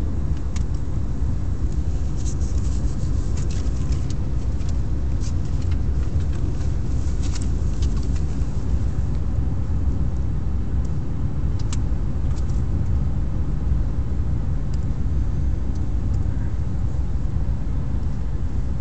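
Steady low road rumble inside a moving car's cabin, with a few faint scattered clicks over it.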